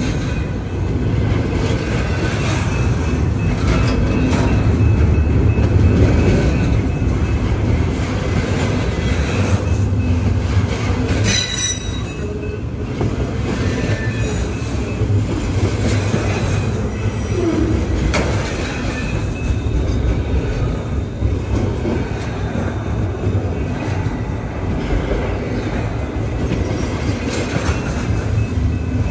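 Intermodal freight cars of a long train rolling past: a steady rumble of steel wheels on the rails, with thin wheel squeals and one brief sharp squeal about eleven seconds in.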